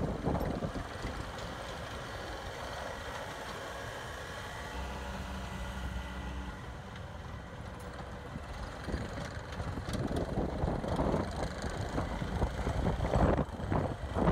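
Cat 259D compact track loader driving on its rubber tracks, its diesel engine running steadily, with uneven, louder surges in the second half.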